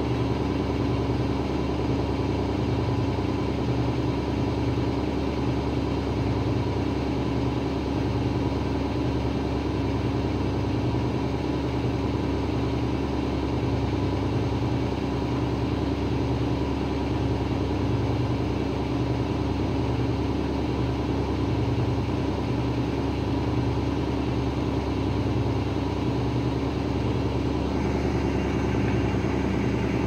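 Daewoo DWD-FT1013 front-loading washing machine running with a steady motor hum and a low throb repeating about every second and a half, the drum turning an unbalanced load.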